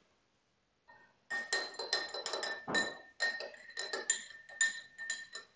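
A quick, irregular run of clinking and clattering of hard objects, beginning about a second in.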